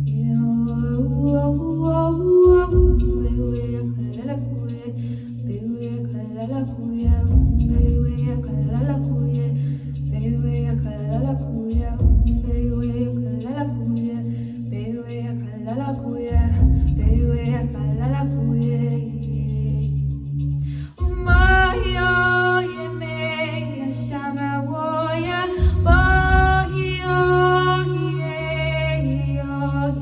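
A woman singing wordless 'light language' vocals over layered vocal loops, with a low bass line repeating about every four and a half seconds and a faint ticking beat. About twenty seconds in, a higher, wavering lead voice comes in on top.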